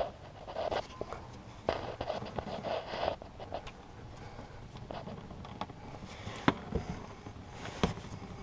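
Hand-handling noises under a car: rustling and scraping in the first few seconds, then a few sharp knocks, from a gloved hand working around the oil filter and the camera being moved.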